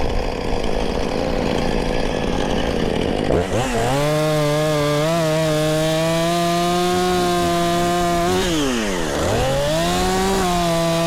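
Two-stroke chainsaw, revved up to full throttle about a third of the way in and held steady while cutting a small tree. Near the three-quarter mark it drops back briefly, then revs up and holds again. Wind buffets the microphone before the saw comes up.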